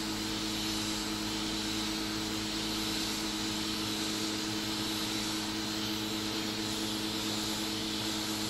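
Hot-air heat gun running steadily, its fan blowing a constant rush of air with a low hum, as it heats a chip on a circuit board to reflow the solder.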